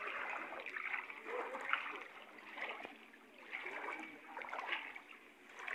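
Feet wading through shallow floodwater, splashing and sloshing in uneven steps about once a second.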